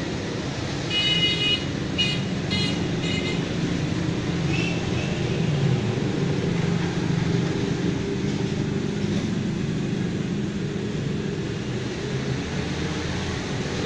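Steady road traffic noise, with a vehicle horn tooting four short times in quick succession about a second in.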